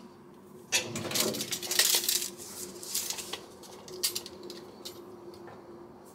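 Steel tape measure being picked up and its blade pulled out, a metallic clattering rattle lasting about a second and a half, followed by a few lighter clicks of handling. A faint steady hum runs underneath.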